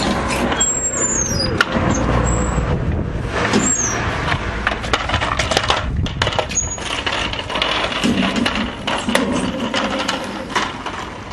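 Irregular clattering, knocking and rustling of a metal garden gate being handled and someone walking through it, with a few short high squeaks in the first few seconds.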